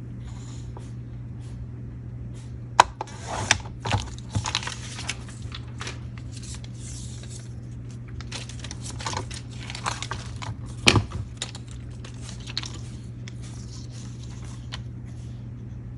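A plastic laminating sheet being handled and cut to size: irregular crinkling rustles with sharp clicks, the loudest about three seconds in and again about eleven seconds in, over a steady low hum.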